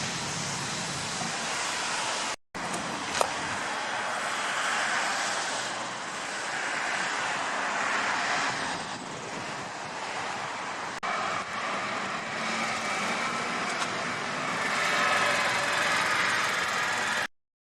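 Fire engine driving by: a steady rush of engine and road noise that drops out briefly about two seconds in.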